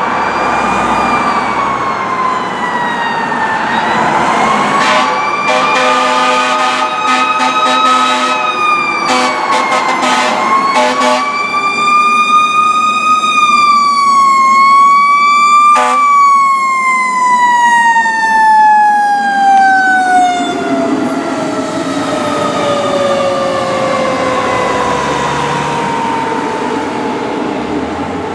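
Fire engine siren wailing, its pitch rising and falling, with a run of short horn blasts several seconds in and another single blast a little past halfway. After that the siren winds down in one long, slowly falling tone.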